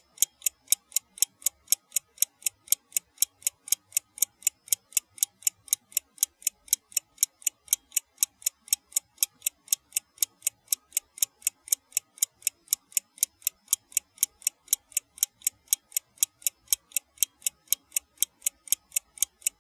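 Old-fashioned mechanical wind-up alarm clock ticking steadily, about four crisp ticks a second.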